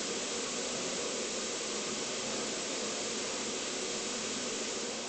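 Steam locomotive giving off a steady, unbroken hiss of escaping steam.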